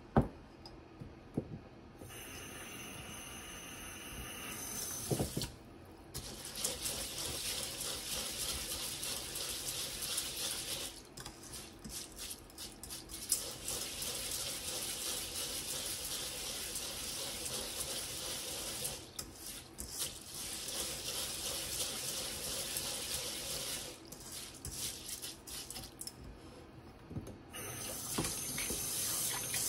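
Tap water running and splashing into a stainless steel bowl of rice in a sink while the grains are washed by hand, swirled and rinsed. The flow is interrupted a few times. There is a sharp knock at the very start.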